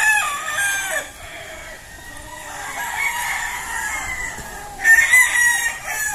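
Gamecocks crowing: one crow right at the start and the loudest about five seconds in, with fainter crowing from other roosters in between.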